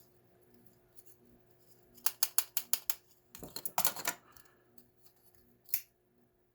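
Small hard parts of a lock follower kit clicking and clattering as they are sorted through by hand: a quick run of about seven clicks, then a short clatter, then one more click near the end.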